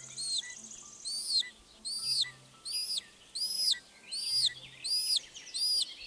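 Common buzzard chick calling from the nest: a thin, high call that rises and falls, repeated steadily about once every 0.8 seconds, some eight calls in a row. These are the contact calls of a chick left alone, trying to get its mother's attention.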